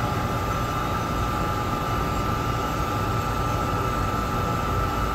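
Wire drum of a fast wire (molybdenum wire) EDM running in high speed mode, spooling the wire back and forth with a steady high whine over a low rumble.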